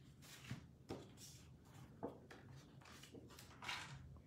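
Faint rustles and a few soft taps of a sheet of cardstock being handled.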